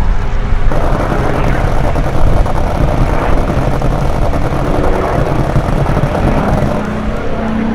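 P-40 Warhawk's piston engine running loud in flight, a dense steady rumble, with a low droning tone that comes in near the end.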